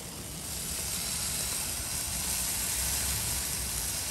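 Chili-butter basting sauce sizzling on a hot grill under skewered whole prawns, a steady hiss that grows louder about half a second in, over a low rumble.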